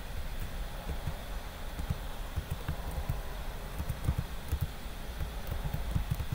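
Computer keyboard keys tapped in an irregular run of dull taps as a password is typed.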